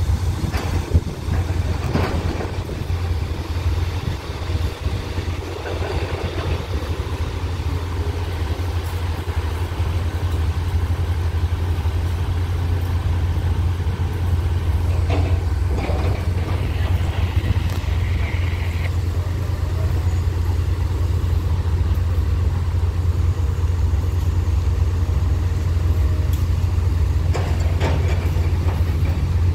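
Railway diesel engines idling, a steady low drone that grows a little louder after the first several seconds.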